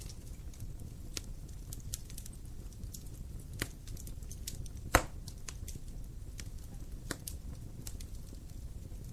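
Wood fire burning with a low steady rumble and scattered sharp crackles and pops; the loudest pop comes about five seconds in.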